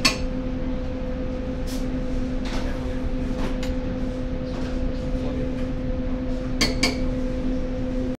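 Kitchen sounds over a steady electrical hum: a few faint clinks of utensils, then two sharp knocks close together near the end.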